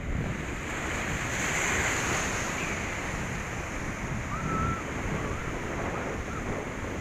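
Rough surf crashing and washing over rocky shoreline, with one wave surging louder about a second in, and wind buffeting the microphone.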